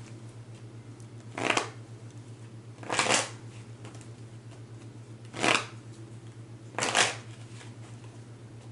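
A deck of tarot cards being shuffled in four short bursts, one to two and a half seconds apart.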